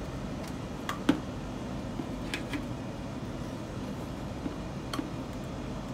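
A few faint plastic clicks and taps as a wiring connector is fitted to the back of a marine tachometer gauge, the sharpest about a second in, over a steady background noise.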